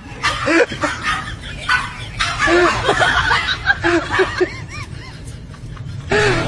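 A small pug making a rapid string of short, whiny yelps and grunts.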